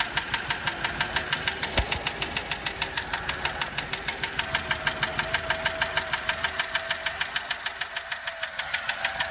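1936 Daimler Light 15 engine running steadily with a fast, even ticking in time with the engine, a tick that the owner doesn't like. A single low thump about two seconds in.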